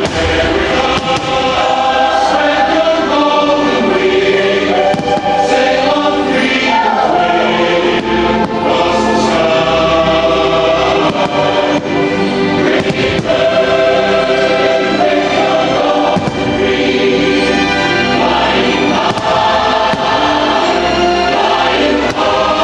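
A choir singing over music, from the fireworks show's soundtrack, with a few firework bangs mixed in, most clearly about halfway through.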